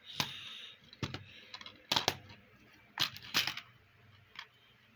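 A series of sharp clicks and short clattering handling sounds, about six in a few seconds, with a light hiss between them.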